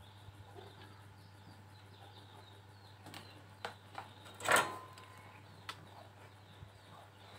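Tool and wire handling: a few sharp clicks and one louder, brief knock about four and a half seconds in, over a low steady electrical hum.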